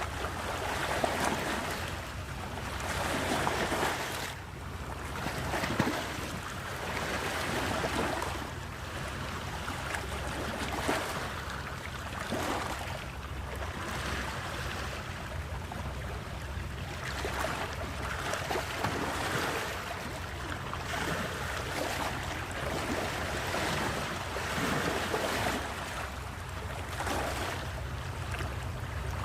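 Sea waves washing and surging in irregular swells, with wind noise on the microphone and a steady low hum underneath.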